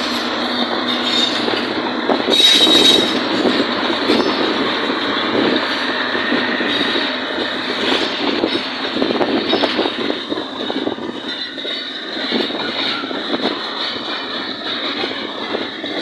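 Passenger express train pulling away behind a GEU-40 diesel-electric locomotive, its coaches rolling past close by with wheels rattling and knocking over the rail joints. A brief high wheel squeal comes about two and a half seconds in, the loudest moment, and the noise eases somewhat as the train draws away.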